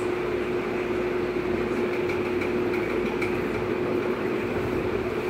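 A steady mechanical hum with one constant low tone, and a few faint clicks.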